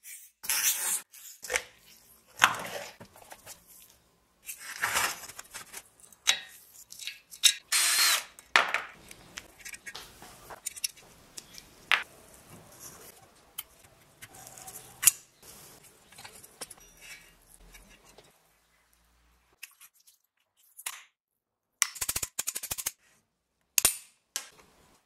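Tool and metal-part noises from a small air-cooled single-cylinder engine being dismantled by hand: a series of short bursts and clinks as the cylinder comes off and the piston is pulled out, with a quick run of clicks near the end.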